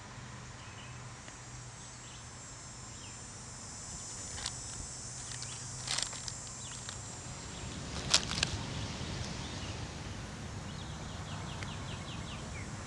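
A few brief crinkles of a SunChips chip bag being handled, the loudest about eight seconds in, over a faint, steady high insect buzz.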